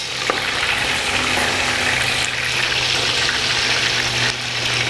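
Chicken leg quarters deep-frying in a stockpot of hot oil: a steady sizzle of vigorously bubbling oil, stirred up by the water left in the parboiled chicken.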